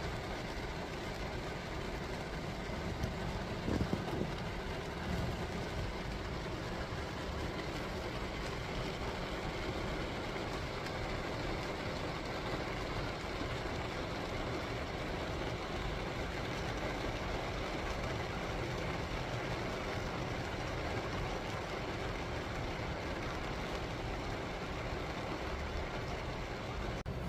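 Steady rainfall, an even hiss with a low rumble underneath, and a brief thump about four seconds in.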